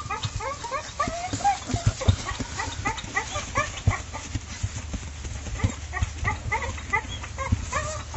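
A litter of American Pit Bull Terrier puppies whimpering and squealing: many short, high, rising-and-falling squeaks overlapping, several a second.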